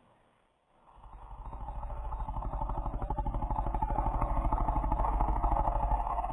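A dog snoring: one long snore made of a fast, fluttering rattle, starting about a second in, growing louder, then stopping abruptly near the end.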